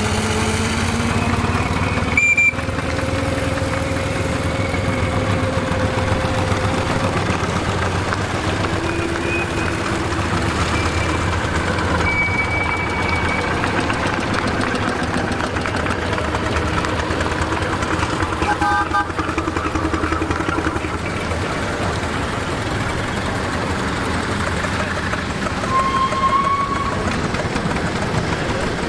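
Miniature steam road engines, a scale steam wagon and small traction engines, running past in a steady procession, with a few brief high peeps over the running sound and a short knock about two seconds in.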